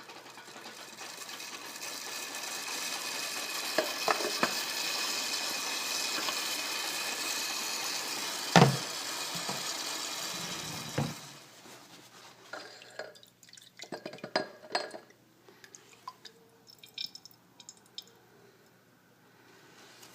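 Vacuum oil extractor drawing oil and air up the dipstick tube into its jug, a steady hissing, gurgling flow that cuts off suddenly about eleven seconds in. A few sharp knocks of parts being handled come through it, the loudest about eight and a half seconds in, and small clicks and clatter follow.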